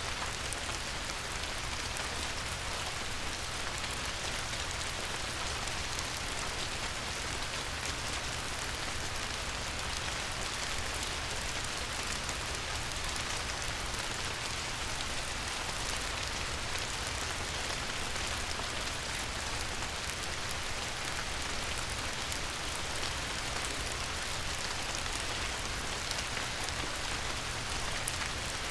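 Light rain falling on a river, a steady even hiss with a fine patter of drops.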